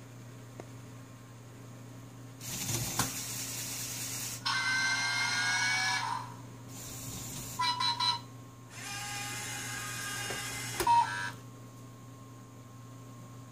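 LEGO Mindstorms EV3 motors driving the giraffe model's gear train and rack neck, running in four bursts of one to two and a half seconds, one with a whine that rises slightly in pitch. There are short sharp sounds near the ends of the last two runs.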